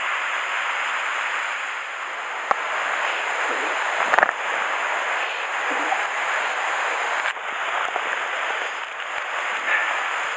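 Steady rush of a waterfall and mountain stream, with a couple of short knocks about two and a half and four seconds in.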